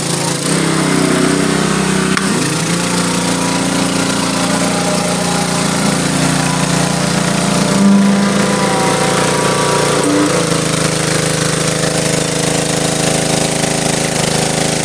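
Gas-engine pressure washer running steadily, with the hiss of high-pressure water spraying through a 15-inch surface cleaner on concrete. The engine note shifts slightly about ten seconds in.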